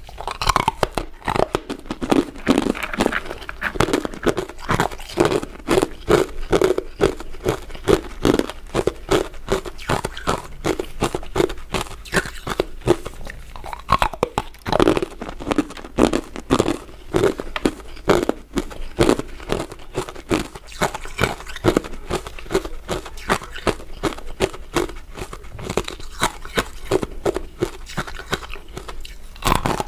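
Close-up crunching and chewing of a crisp crystal ice dessert: a dense run of sharp crackling crunches, with louder bites coming about once a second.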